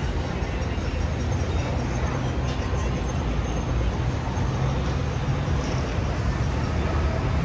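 Steady road traffic: cars and a double-decker bus running along a busy city road, a continuous low rumble.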